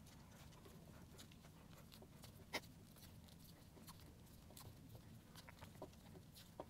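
Near silence: faint clicks and rustles of hands wrapping electrical tape around a spliced wire. One sharper click comes about two and a half seconds in.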